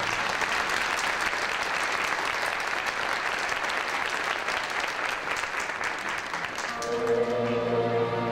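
Audience applauding, many hands clapping, after a piece of orchestral ballet music ends; the next orchestral piece starts up about seven seconds in.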